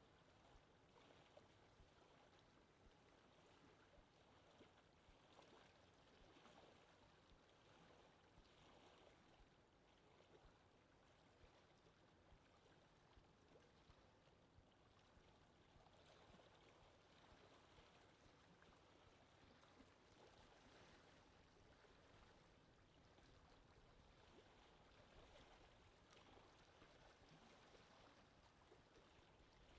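Faint, steady rushing of wind, swelling and easing gently with no breaks.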